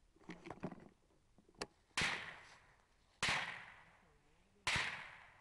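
Three suppressed rifle shots from an LWRC REPR fitted with a Gemtech Quicksand suppressor, fired about a second and a half apart. Each is a sharp crack followed by an echo that dies away over about a second.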